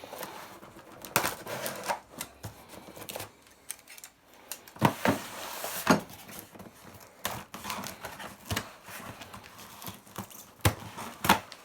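A cardboard parcel being opened by hand: irregular knocks, clicks, scrapes and rustles of tape and packaging.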